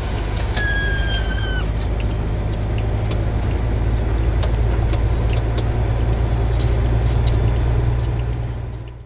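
MAN TGX truck's diesel engine running with a steady low rumble as the truck drives slowly. A brief high squeal sounds about half a second in and lasts about a second.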